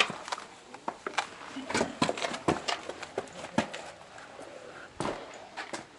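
Irregular footsteps and knocks on a rocky hiking trail, several a second, with a sharp knock at the start.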